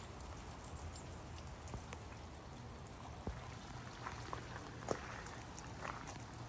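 Quiet outdoor ambience with scattered light taps and ticks and a few soft crunches of footsteps on wet gravel.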